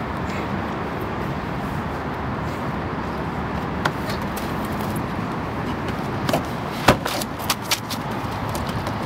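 A car's steady running and road noise, with a few sharp clicks or knocks in the second half, the loudest about seven seconds in.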